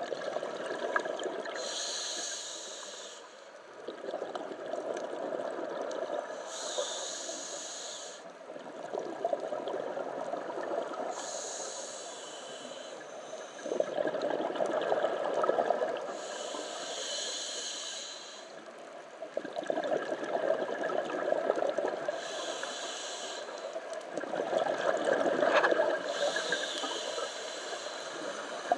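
A scuba diver breathing through a regulator underwater: a hissing inhale and then a rumble of exhaled bubbles, about six breaths, one every four to five seconds.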